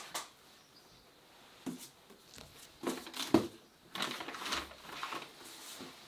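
Paper leaflet rustling and being handled, with a few short scrapes and taps scattered through, the sharpest about three seconds in.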